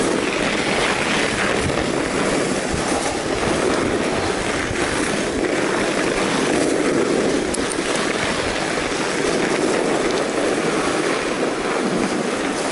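Steady rolling noise of a fat bike riding over a packed-snow trail: wide tyres on snow, with small rattles and knocks throughout.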